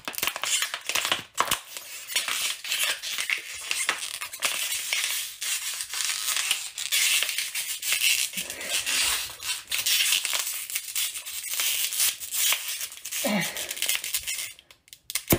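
Plastic water bottle being crushed and twisted by hand, with a continuous crackling and crinkling of the plastic.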